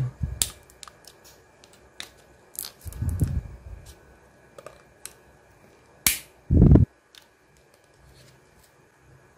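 Handling noise as DDR4 RAM sticks and their packaging are picked up and turned over. Scattered sharp clicks and three dull bumps, the loudest bump about six and a half seconds in.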